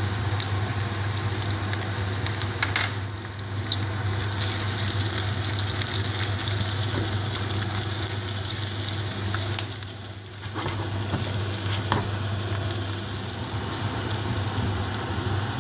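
Onion, peppers and garlic sautéing in olive oil in a frying pan: a steady sizzle over a low hum, with a few light clicks from stirring.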